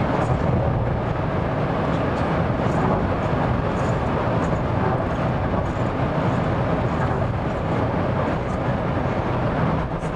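Steady road and engine noise of a car driving at speed, heard from inside the cabin.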